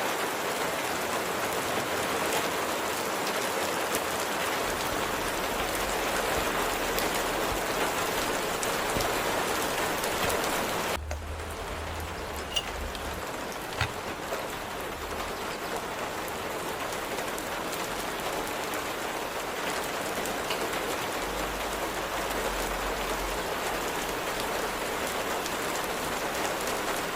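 Steady rain falling, an even hiss with no let-up; about eleven seconds in it drops suddenly to a slightly softer, duller rain, with a couple of faint ticks just after.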